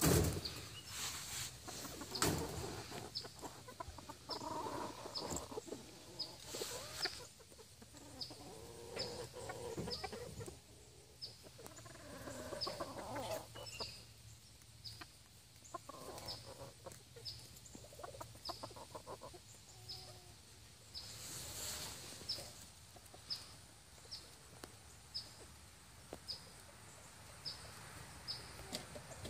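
Game fowl cocks clucking in short spells, with a faint high chirp repeating steadily about once a second behind them.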